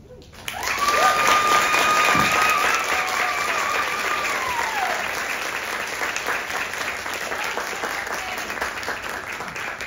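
Audience clapping, starting about half a second in, loudest for the next couple of seconds and then slowly tapering off. Over the first few seconds someone in the crowd holds a long high cheer that falls away at its end.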